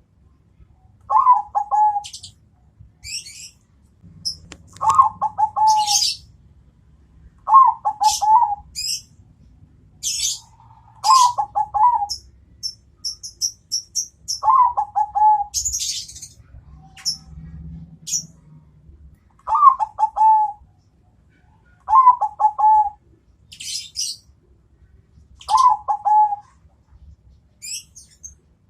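Zebra doves (Bangkok-strain perkutut) cooing: about eight short, falling, trilled phrases, one every two to four seconds. High thin chirps from small birds come between them.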